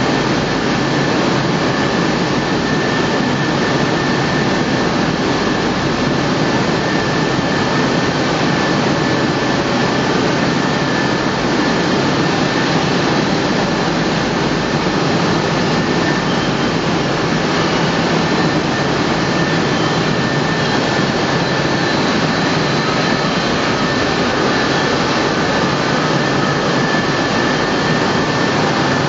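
Welding-wire no-twist coiler running steadily, an even loud rushing machine noise with a thin, steady high whine over it.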